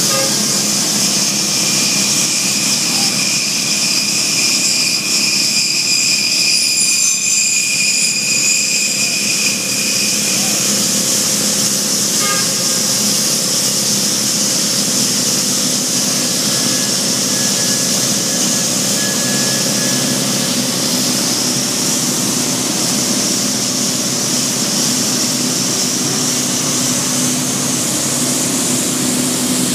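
Heavy quarry machinery running steadily: a constant engine drone under a loud high-pitched whine.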